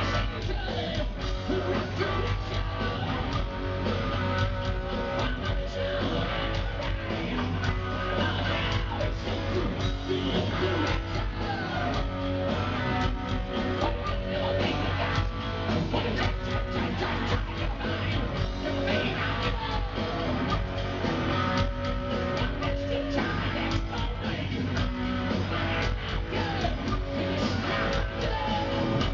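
Rock band playing live on a loud PA: electric guitars and a drum kit.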